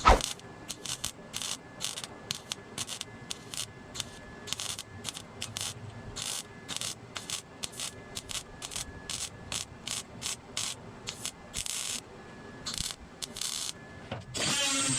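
Hand ratchet clicking in quick short runs, then a power drill starts running steadily near the end.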